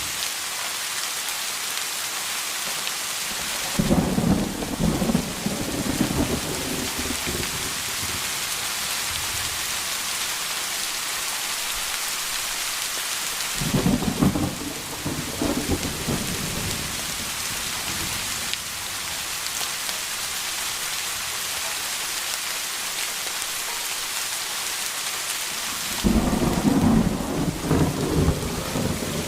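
Steady rain falling, with thunder rumbling three times: about four seconds in, around the middle and near the end, each rumble lasting a few seconds.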